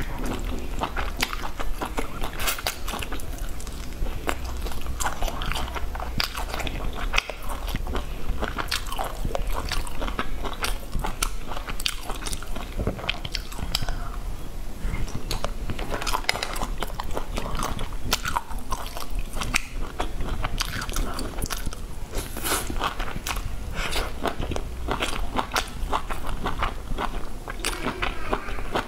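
A person chewing and biting seasoned meat and vegetable skewers, with many small clicks and crunches of mouth sounds throughout.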